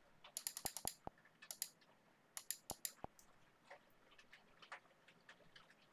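Faint clicking at a computer: short runs of sharp clicks, most of them in the first three seconds, with fainter scattered ticks after.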